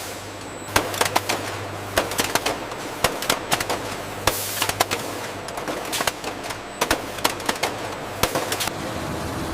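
Irregular sharp clicks and clacks, sometimes in quick clusters, over a steady low machine hum.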